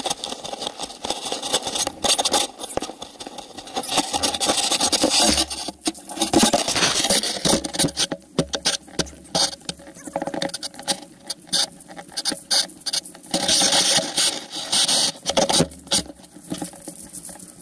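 Footsteps crunching through dry fallen leaves, mixed with rubbing and knocking of a pole-held camera: a dense, irregular run of crackles and scrapes.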